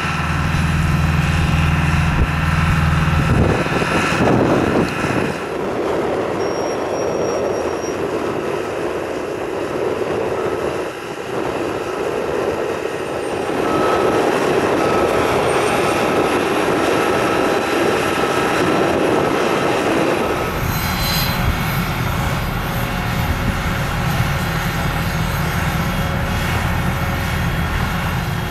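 De-icing truck spraying de-icing fluid over a Boeing 737's wing: a steady mechanical engine drone with the rushing hiss of the spray. The low drone is heavy for the first few seconds, gives way to a rushing hiss, and comes back strongly about two-thirds of the way through.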